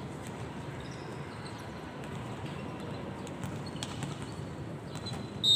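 Low, steady indoor sports-hall ambience with a few light knocks. Right at the end a referee's whistle starts, a loud, sudden, steady shrill blast.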